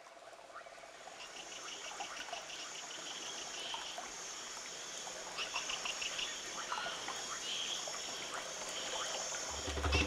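Rainforest soundscape fading in from silence: a chorus of frogs and insects calling in rapid repeated chirps over trickling water, growing louder. Music with a low drum beat comes in near the end.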